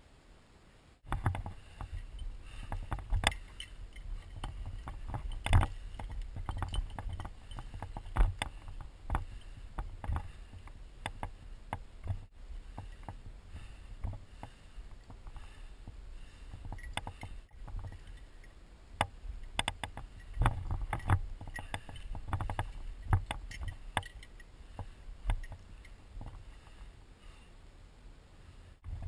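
Wind rumble and handling noise on a body-worn action camera as a climber moves along a granite ridge, with many scattered clicks, knocks and scuffs from boots and gear on the rock.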